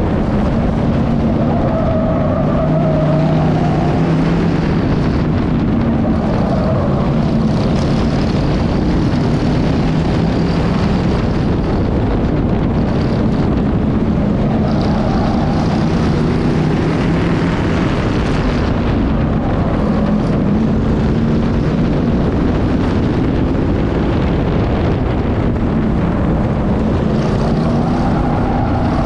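Factory stock race car engine running hard on an oval, its note rising and falling every few seconds as the throttle goes on and off through the turns, over a steady rush of wind and road noise on an onboard microphone.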